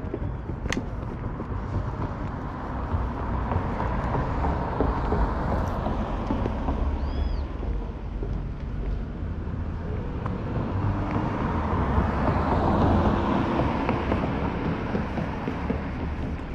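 Street traffic: cars passing by, swelling and fading twice, over a constant low rumble.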